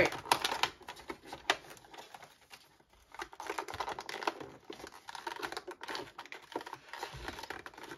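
Fingernails picking and scratching at a cardboard advent calendar door, a run of small irregular clicks and scrapes as the stiff door is pried open, with a short pause near three seconds in.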